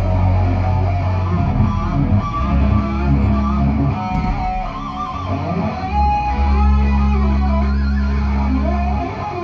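Live rock band playing loud: distorted electric guitars and bass hold heavy chords for a couple of seconds each, with a short break about four seconds in.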